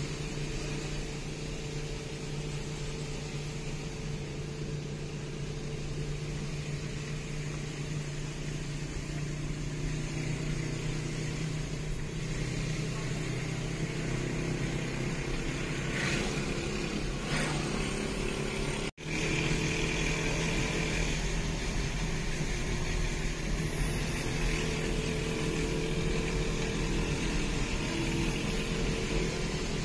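Steady engine drone with road noise, heard from inside a car cabin while it is towed behind a motorcycle-sidecar tricycle. The sound cuts out for an instant about two-thirds of the way through.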